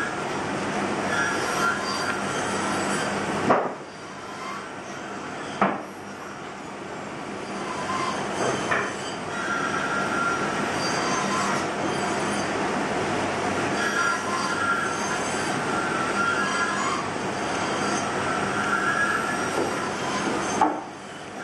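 Carving knife paring a pine Dala horse blank: continuous scraping, crunchy cuts through the wood with squeaky tones, broken by a few sharp knocks.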